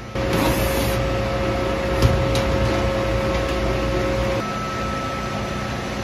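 Steady mechanical hum of running commercial hot water boilers and their combustion blower fans, with a held whine that gives way about four and a half seconds in to a fainter, higher tone as the low rumble eases. A single click about two seconds in.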